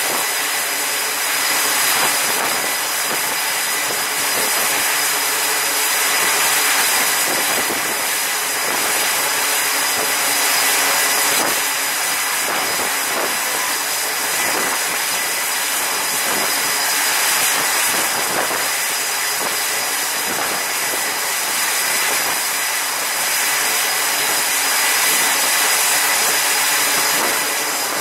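Steady roar of noise on an aircraft carrier's flight deck: wind rushing past with a thin, steady high-pitched whine, swelling and easing a little every few seconds.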